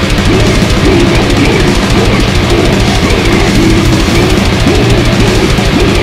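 Old-school death metal played loud and dense: heavily distorted guitars and bass over fast, busy drumming, with no break.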